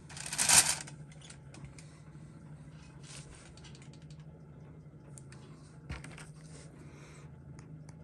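A short, loud rushing noise about half a second in, then scattered light clicks and taps of fingers handling a steel watch case and movement on a work mat.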